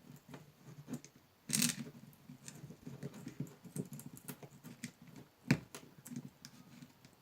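Plastic pieces being pried and pulled out of a gutted 6-volt lantern battery: scattered small clicks and rattles, a longer scraping crackle about a second and a half in, and one sharp click about five and a half seconds in.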